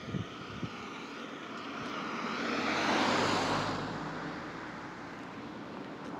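A vehicle passing by: a rushing engine noise that builds to a peak about three seconds in and then fades away.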